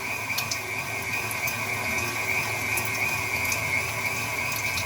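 KitchenAid stand mixer motor driving a meat grinder attachment, running steadily with a high whine over a low hum as it grinds meat scraps.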